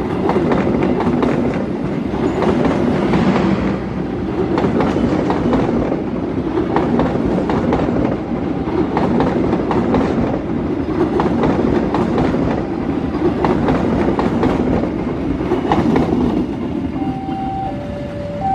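Passenger coaches of an Indonesian long-distance train passing close by at speed: a steady rumble with the wheels clacking over rail joints. Near the end, a level-crossing warning alarm sounds two alternating tones.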